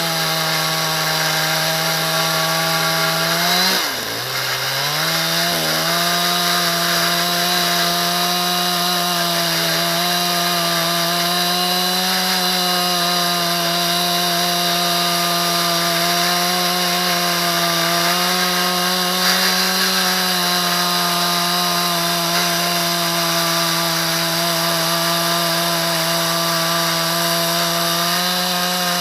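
Husqvarna 372 XPG two-stroke chainsaw with a ripping chain running at high speed in a chainsaw mill, rip-cutting lengthwise through a very dry, hard ash log. About four seconds in, the engine speed dips sharply and then recovers. After that it holds a steady, slightly wavering pitch under load.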